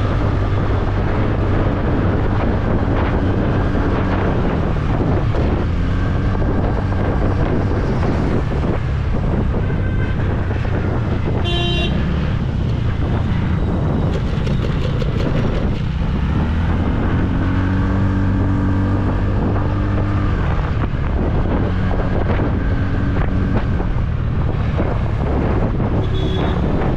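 Wind buffeting the microphone over a scooter's engine in moving traffic, with engine pitch slowly rising and falling as speed changes. A vehicle horn honks briefly about twelve seconds in and again faintly near the end.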